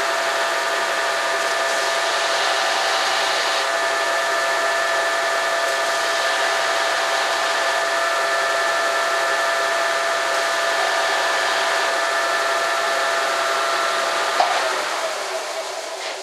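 Bench disc sander running steadily, a motor hum with several steady tones, while a small air pressure fitting held in pliers is sanded on the disc to smooth its cut-off end. About two seconds before the end it is switched off and winds down.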